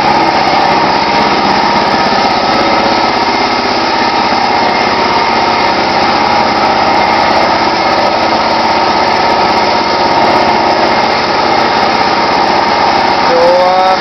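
John Deere LX176 lawn tractor's engine running steadily as the tractor is driven.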